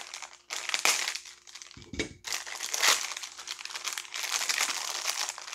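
Foil blind bag of a Funko mystery mini crinkling and crumpling in irregular bursts as it is worked open by hand, with a dull knock about two seconds in.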